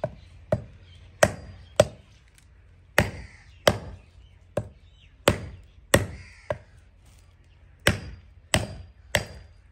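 Hatchet chopping dry tree branches into short lengths on a concrete block: about a dozen sharp, separate chops, often two in quick succession, with short pauses between.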